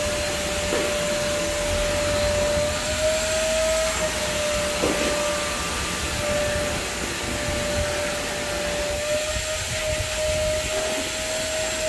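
Electric vacuum cleaner running steadily: a constant motor whine over the rush of air.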